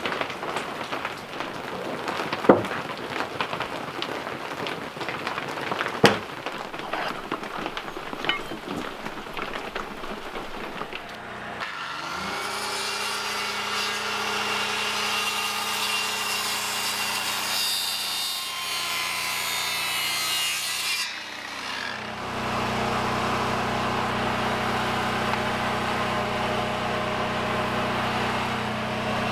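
A power saw cutting into a squared timber beam: it spins up about twelve seconds in, runs steadily through the wood, stops briefly around twenty-one seconds, then runs again. Before it there are scattered handling noises with two sharp knocks.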